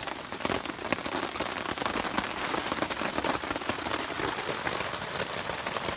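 Heavy rain falling steadily, with many separate drops striking close by.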